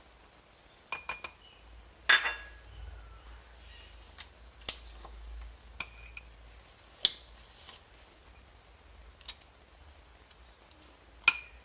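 Metal teaspoon clinking and tapping against a glass while honey is spooned in: irregular sharp clinks with short rings, three in quick succession about a second in and one of the loudest near the end.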